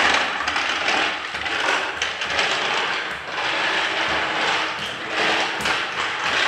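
Large plastic Thomas the Tank Engine toy pushed along a tiled floor: its plastic wheels rolling with a steady rough rattle that swells and eases as it is pushed.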